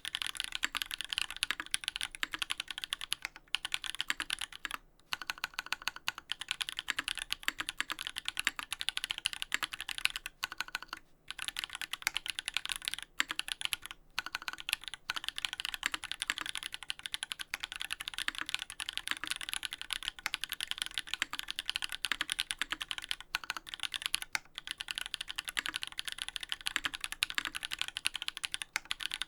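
Fast, continuous typing on a Duck Orion V3 custom mechanical keyboard with lubed Holy Panda tactile switches on an FR4 plate and GMK keycaps: a dense run of keystroke clacks broken by a few brief pauses.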